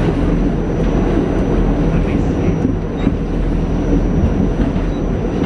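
R46 subway car running through a tunnel, heard from inside the car: a loud, steady rumble of wheels on rail and running gear, with a thin high steady whine above it.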